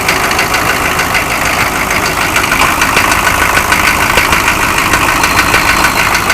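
Chevrolet Suburban's engine idling steadily, loud and close, just after being started on a timed crank.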